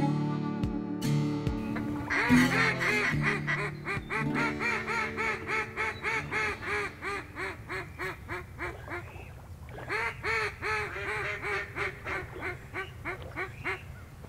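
Mallard duck call blown in long runs of rapid, evenly spaced quacks, a hail-style calling sequence that grows quieter as it goes. The first run lasts about seven seconds, then after a short pause a second, shorter run tapers off.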